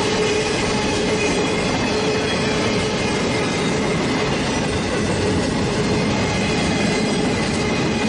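Steady running noise of a train: a continuous rumble and rail noise with a faint steady tone over it.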